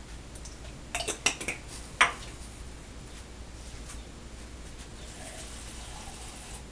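Kitchen dishes and utensils clinking: a quick run of clinks about a second in, then one sharper knock about two seconds in.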